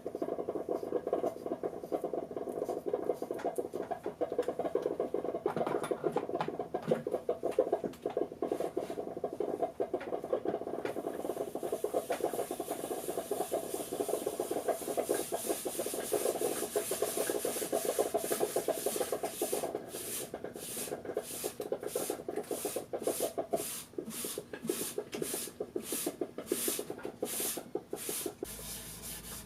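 Rag rubbing beeswax into a shellacked wooden box, a dense scrubbing that grows hissier partway through and near the end settles into even back-and-forth strokes, about two a second.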